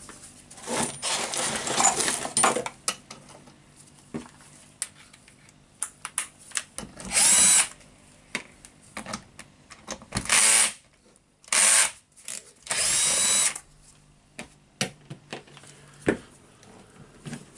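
Power drill fitted with a socket, run in several short bursts to back out screws from a Hitachi H45MR demolition hammer's housing; the motor spins up each time and the longest burst comes near the end. Clicks and knocks of handling the tool and parts sound between the bursts.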